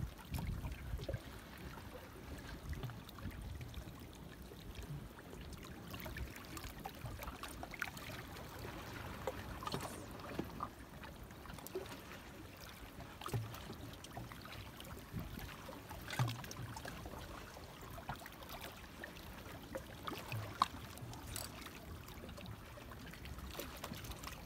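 Sea water lapping and trickling among the rocks of a breakwater, a low steady wash with faint scattered clicks and knocks.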